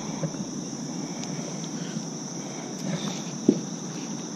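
Steady high-pitched chorus of insects, with a few light knocks and rustles of handling on the kayak, the sharpest a single knock about three and a half seconds in.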